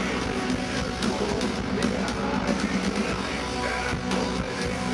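Live metal band playing an instrumental passage at full volume: heavy distorted electric guitars over a pounding drum kit, with no vocals.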